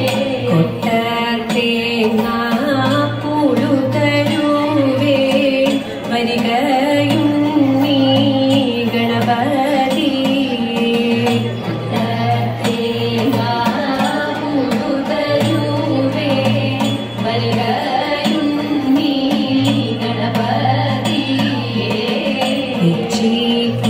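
Thiruvathira (Kaikottikali) dance song in Malayalam: singing with instrumental accompaniment, over a low note that comes and goes every few seconds.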